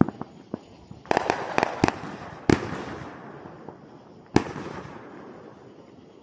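Fireworks going off: a sharp bang, a quick run of cracks about a second in, then two big booms about two seconds apart, each trailing off in a long rolling echo.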